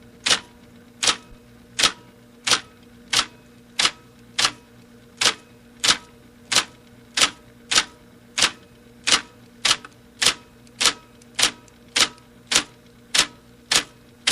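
Typewriter keys struck one at a time at a slow, even pace, about three strokes every two seconds, each a sharp clack. A faint steady hum runs underneath.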